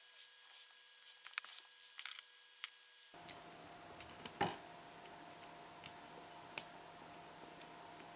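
Tiny plastic LOZ iBlock micro building blocks clicking as they are pressed together and picked up off a wooden table: scattered irregular clicks, the loudest about four seconds in. A faint steady hum comes in about three seconds in.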